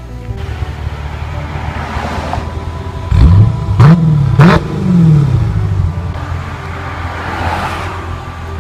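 Stock V8 muscle car idling, then revved with three quick throttle blips about three seconds in. The exhaust note climbs sharply with each blip and falls back to idle.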